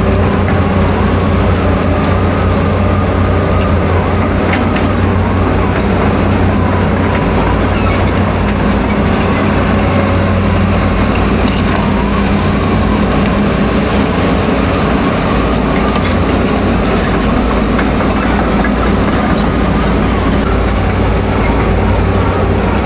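A heavy engine running steadily: a deep, constant hum with a few steady tones above it and some faint clicks, unchanged throughout.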